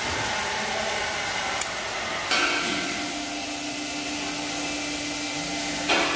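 Steady fan-like hiss of repair-shop background noise, with a faint steady hum coming in about two seconds in and two brief knocks as the parts of an electric power-steering column are handled.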